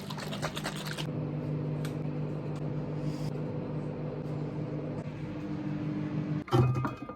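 Microwave oven running with a steady hum, cooking a ready meal, with some clicking in the first second. The hum stops about six and a half seconds in and is followed by a brief loud sound.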